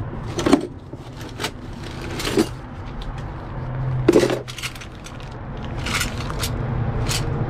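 Small hard objects being handled and set down: about five separate light knocks and clinks a second or two apart, the loudest a little past four seconds in, over a steady low hum.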